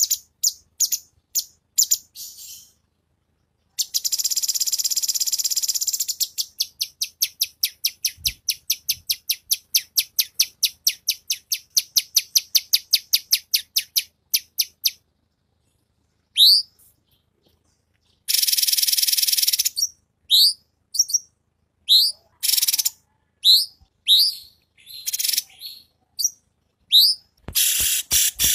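Recorded songbird song, high and clear. A few quick chirps open it. About four seconds in comes a fast trill, then a long run of rapid repeated notes. After a short pause, rising whistled notes alternate with harsh buzzy phrases.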